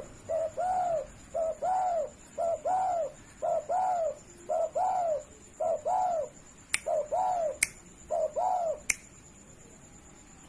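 Spotted dove cooing in a steady run of about eight two-note phrases, each a short coo followed by a longer arched one, roughly one phrase a second, stopping short of nine seconds in. Three sharp clicks come in the second half, over a faint steady high whine.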